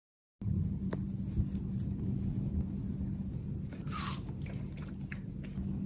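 Electric blender running on a mango smoothie: a steady motor hum with a low rumble and scattered clicks of the ingredients striking the jar and blades. It starts abruptly about half a second in.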